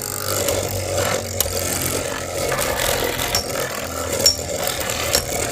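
Two Beyblade spinning tops, Phantom Orion and L-Drago Destroy, whirring and rattling around a battle stadium, with sharp clicks as they clash.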